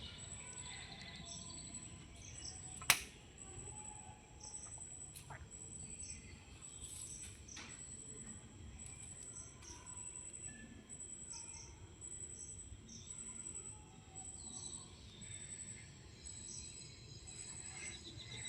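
Faint outdoor background of birds chirping, with a high-pitched chirp repeating in short, even pulses throughout. A single sharp click sounds about three seconds in.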